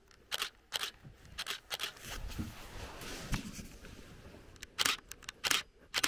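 DSLR camera shutters clicking, singly and in quick pairs, with a run of rapid clicks near the end. A rustling noise with a low rumble fills the middle seconds.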